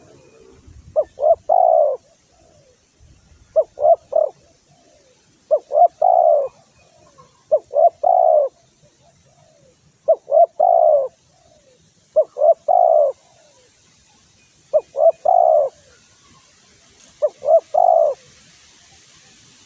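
Spotted dove (tekukur) cooing: eight repeated phrases, each a quick run of short coos ending in a longer one, about every two and a half seconds.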